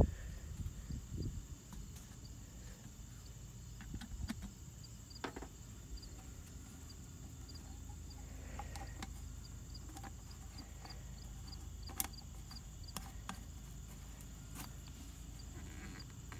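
Scattered light clicks and knocks from hands handling plastic oil bottles and a filler spout, the sharpest about twelve seconds in. A faint high chirp repeats steadily about three times a second underneath.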